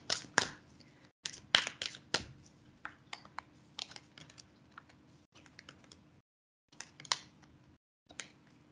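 A deck of tarot cards being shuffled by hand: a run of short, irregular clicks and flicks as the cards slap against each other, thick in the first few seconds and thinning out toward the end.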